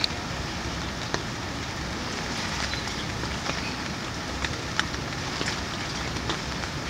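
Rain falling on lotus leaves: a steady hiss with scattered drop ticks.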